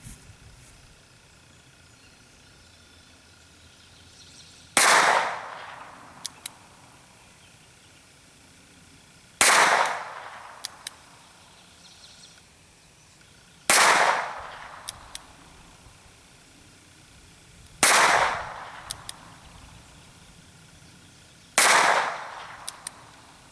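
Five shots from a North American Arms .22 Short mini revolver, one every four seconds or so, each a sharp crack with a short decaying tail. About a second and a half after each shot come two light clicks as the single-action hammer is cocked for the next round.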